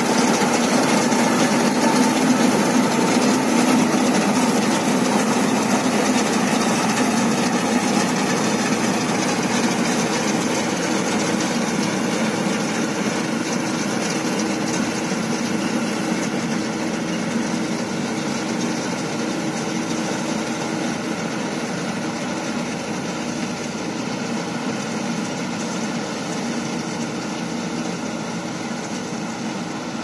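Vishal 435 combine harvester running as it cuts wheat: a steady engine-and-machinery drone that slowly fades as the combine moves away.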